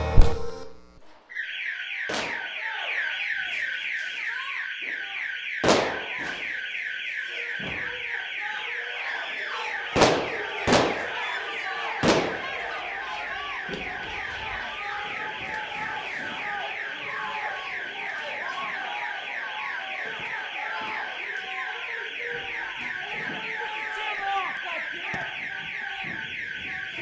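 Music cuts off, and about a second later a loud electronic alarm starts: a fast pulsing, warbling tone that sounds on steadily. A crowd's voices carry on underneath, and several sharp bangs ring out in the first half.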